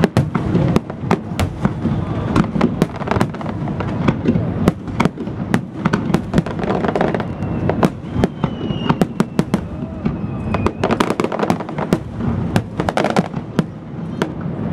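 Aerial fireworks shells bursting in quick succession, several sharp bangs a second over a continuous low rumble of overlapping explosions.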